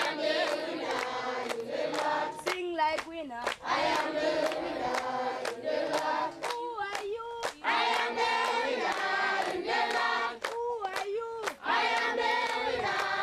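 A choir of voices singing together in harmony, with sharp hand claps keeping time about twice a second.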